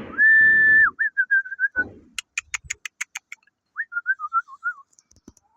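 High whistled notes: one loud held note, then a quick run of short notes, then wavering notes that fall in pitch. Between them comes a rapid series of about eight sharp clicks, and there is a faint thump near the end.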